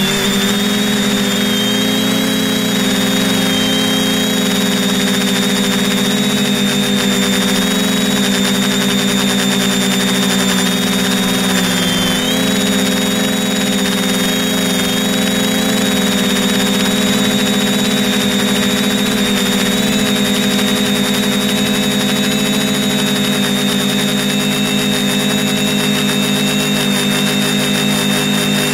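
Electric motors and propellers of a Pixhawk-controlled drone, heard close up from its onboard camera: a steady whine with a high tone over it, dipping briefly in pitch about twelve seconds in.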